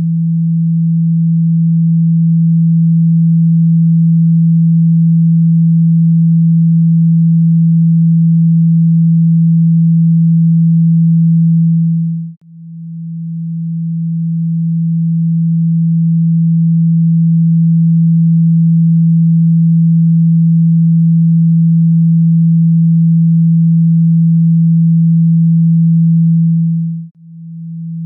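Steady low pure tone of the kind played through a phone speaker to shake out trapped water and dust. It cuts out briefly about twelve seconds in and again near the end, and swells back up over a few seconds each time.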